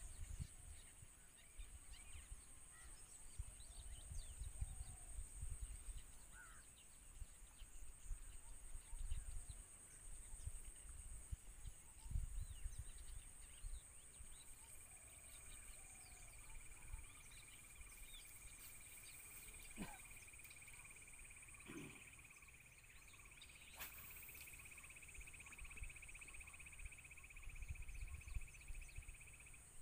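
Faint outdoor ambience at a marsh: a steady, high insect drone throughout, with a second, lower trill joining about fourteen seconds in and stopping near the end. Gusts of low wind rumble on the microphone and a few faint bird chirps come and go.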